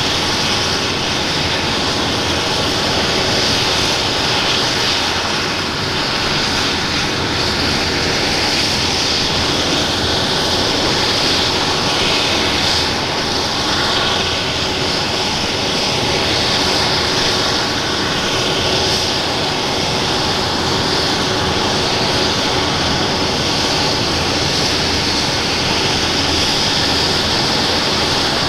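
An Airbus EC135 P2+ helicopter running steadily on the ground, its twin Pratt & Whitney PW206B turboshaft engines whining under the rotor noise at an even level.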